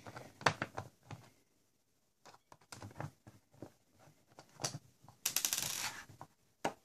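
Scattered clicks and knocks of a screwdriver backing Phillips screws out of a plastic cordless drill battery pack casing, with a quick run of rapid clicks about five seconds in.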